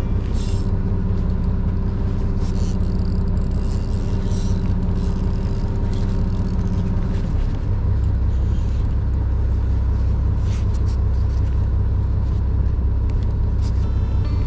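Fishing boat's engine running with a steady low rumble and hum. About halfway through the note changes: the higher hum drops away and the deepest rumble grows stronger.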